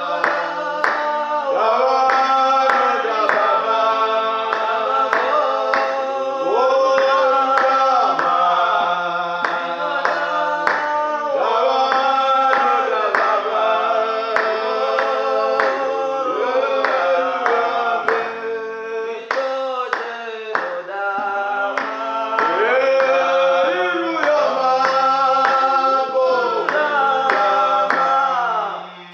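Shona gospel song: singing voices over a steady percussion beat, with a brief drop in loudness near the end.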